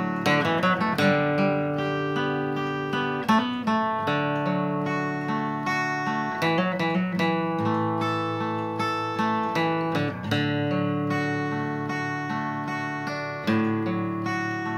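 Acoustic guitar strumming chords, letting them ring and changing chords every few seconds.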